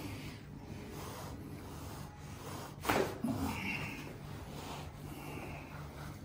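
Chiropractic adjustment: a single sharp crack from the thrust about three seconds in, followed at once by the patient's short grunt, over quiet breathing and rubbing against a low steady hum.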